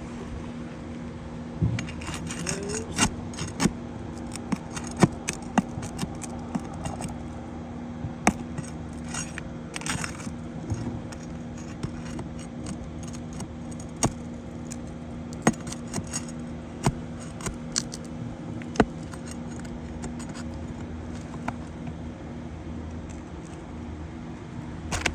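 Irregular metal clicks, clinks and scrapes of a hand tool working under asphalt shingles, prying them loose and pulling roofing nails, over a steady low hum.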